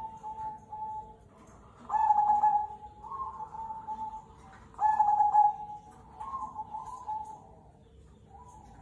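Zebra dove (perkutut, cemani kolbuntet) cooing in repeated pitched phrases, loudest about two seconds in and again about five seconds in, with softer coos in between.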